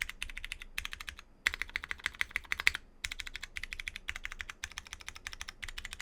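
Fast typing on a plateless mechanical keyboard with Cherry MX Brown tactile switches and GMK keycaps: a rapid run of keystroke clacks broken by brief pauses about one and a half seconds and three seconds in.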